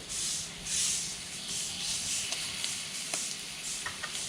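Meat sizzling on a hot mu kratha grill pan, a hiss that swells in surges in the first second or so, with a few light clicks of utensils later.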